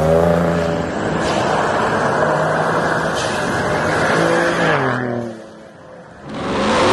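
Ford F-150 Raptor pickups accelerating hard. First an engine note revs up and down. Then a truck spraying gravel makes a loud rush of engine and tyres, and its engine note drops in pitch and fades as it pulls away. Near the end another engine starts revving loudly with a rising note.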